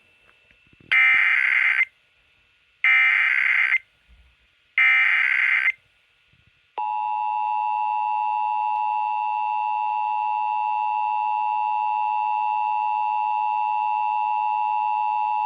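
Emergency Alert System header broadcast over FM radio. It opens with three one-second bursts of screeching SAME digital data tones, then the steady two-tone EAS attention signal (853 and 960 Hz) sounds for about nine seconds. Together they mark the start of a Required Monthly Test alert.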